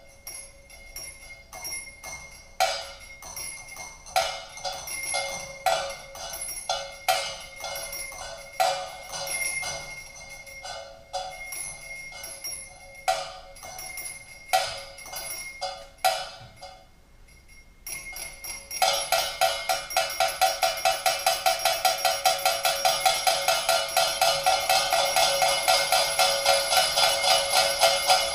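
Arduino-controlled interactive sound instrument playing scattered, irregular ringing percussive strikes. After a short lull about two-thirds of the way through, it switches to a fast, even run of strikes, about four a second, that grows steadily louder.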